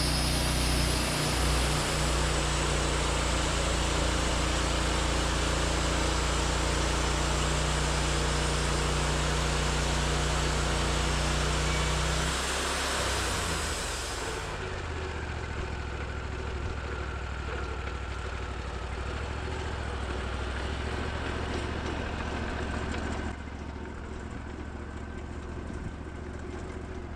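Portable sawmill's engine running steadily under a wide hiss, then dropping to a lower, quieter running about halfway through.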